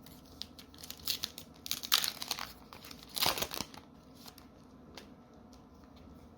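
Foil booster-pack wrapper crinkling in several bursts, the loudest around two and three and a half seconds in, followed by a few light ticks.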